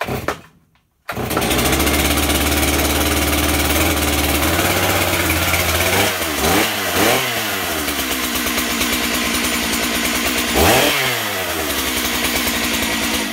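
Stihl MS441 two-stroke chainsaw on a cold start: it catches about a second in and runs at a steady fast idle. It is then revved up and down briefly three times and shut off at the end.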